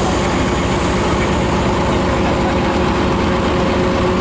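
Diesel locomotive engine idling steadily: a constant low throb with a steady hum over it.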